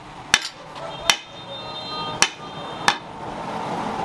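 Four sharp knocks, roughly one every three-quarters of a second, as a wooden sword handle fitted over the steel tang is rapped down on a block to drive it home; the steel blade rings faintly after the second knock.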